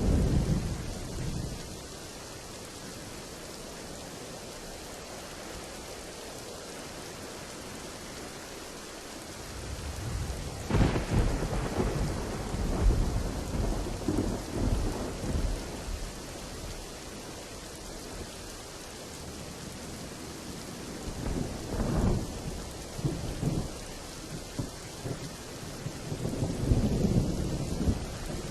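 Thunderstorm with steady rain: a rumble of thunder dies away in the first couple of seconds, then a sharp thunderclap about ten seconds in rolls on for several seconds, another clap rumbles about twenty-two seconds in, and a further roll builds near the end.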